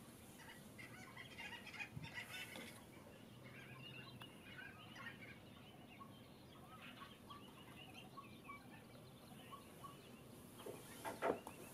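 A faint chatter of many short calls from a mixed flock of wetland birds, scattered and overlapping, busiest in the first few seconds, with one short, louder burst near the end.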